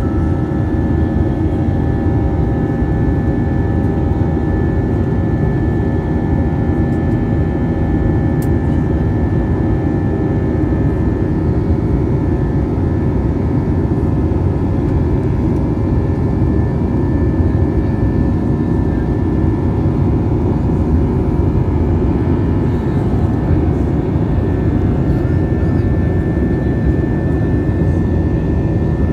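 Steady cabin roar of an Airbus A320 climbing after take-off: a deep rumble of its IAE V2500 turbofans and airflow, with several steady whining engine tones over it.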